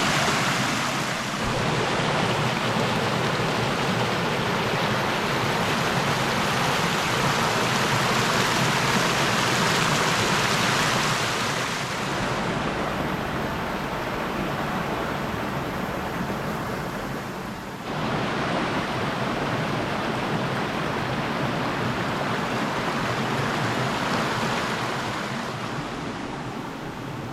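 A small creek waterfall rushing and splashing: a steady, dense roar of falling water. It dips a little in loudness near the middle and shifts suddenly about two-thirds of the way through.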